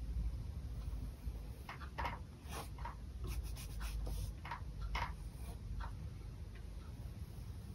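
Paintbrush loaded with acrylic paint stroking across a canvas: a dozen or so short, irregular scratchy swishes over a low steady hum.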